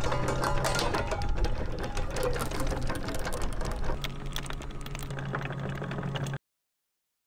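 Electric anchor windlass running, the chain clattering link by link over the gypsy above a low steady motor hum, as the anchor is let down. The sound cuts off suddenly about six seconds in.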